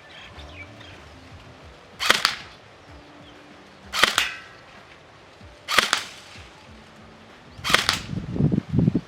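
Golden Eagle M4A1 airsoft rifle firing single shots of 0.20 g BBs: four sharp cracks about two seconds apart, followed by a few low thumps near the end.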